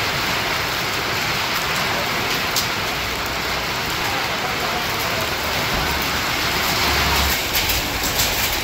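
Heavy rain falling steadily on a road and bare ground, an even hiss, with a few sharp ticks near the end.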